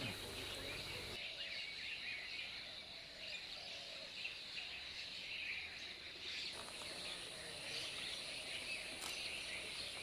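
Steady outdoor insect chorus, a high continuous buzz, with the background shifting abruptly about a second in and again past the middle.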